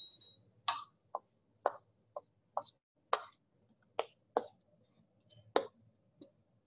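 Wooden spoon scraping and knocking against a wok as chopped-chili sauce is scooped out into a bowl: about ten short, sharp scrapes at irregular spacing, with a brief high beep at the very start.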